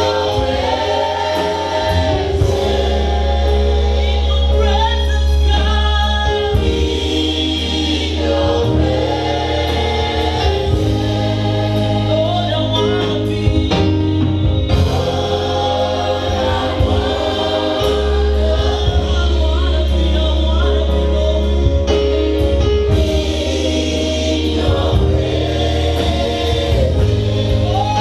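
Gospel worship song: a choir singing in harmony over a band with a sustained bass line.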